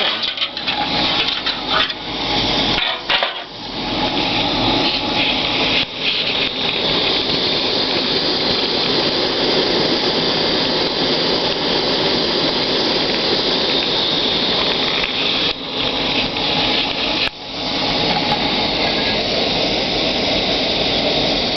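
MSR Whisperlite International liquid-fuel stove burning at a high flame under a pot of water nearing the boil: a steady, loud burner hiss, dipping briefly about three seconds in and again near the end.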